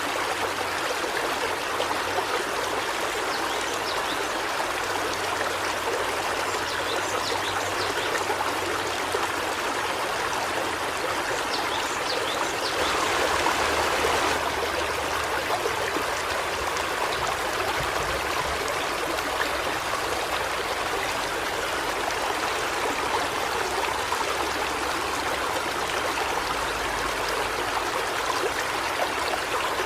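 River water flowing steadily, a continuous rushing and babbling that swells slightly louder for a couple of seconds about halfway through.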